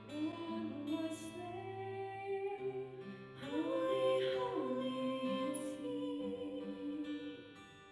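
Two women singing in harmony over a strummed acoustic guitar. The song closes on long held notes that die away near the end.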